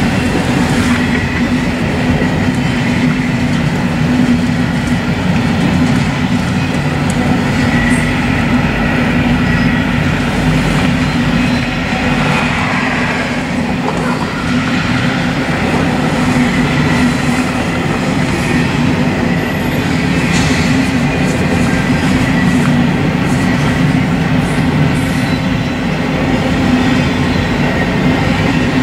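Double-stack intermodal freight cars rolling past close by: a steady loud rumble and rattle of steel wheels on the rails, with a faint high wheel squeal that comes and goes.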